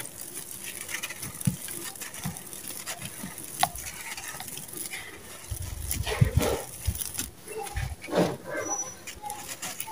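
Hands crushing dry lumps of sand-cement mix, the grit and powder crumbling and pattering onto a heap of dry sand and gravel, with scattered crunches and clicks. The crunching is busiest and loudest in the second half.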